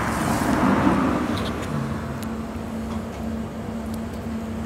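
Road traffic: a passing vehicle whose noise swells over the first second and then fades, over a steady low hum.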